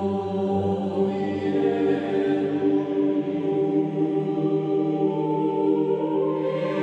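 Slow choral music: voices holding long, sustained chords that change a few times.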